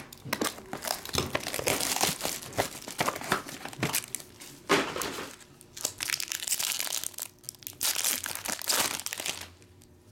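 Crinkling and crackling of a silver foil trading-card pack as it is handled and torn open, stopping near the end.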